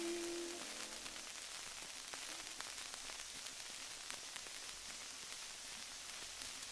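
A last held note of music dies away about half a second in, leaving the surface noise of a 1912 record: steady hiss with dense fine crackle.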